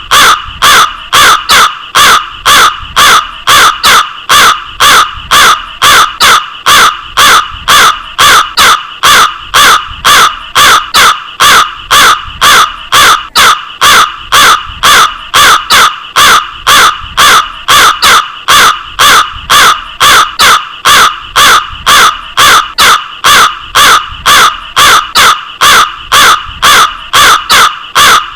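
Crow cawing over and over at an even pace, about two loud caws a second.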